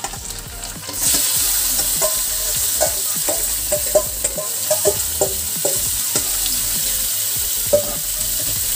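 Raw chicken pieces tipped into hot oil and browned onions in a metal kadai: a loud sizzle starts about a second in and keeps going. A metal spatula knocks and scrapes against the pan as the chicken is stirred.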